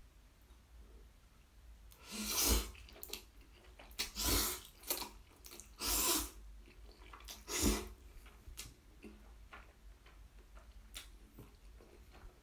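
A person slurping up black bean instant noodles in about five loud, hissing pulls over some six seconds, then chewing quietly with small wet clicks.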